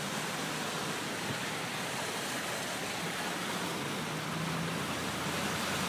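Steady rushing noise of heavy storm rain and floodwater around a moving car, with a faint low hum underneath.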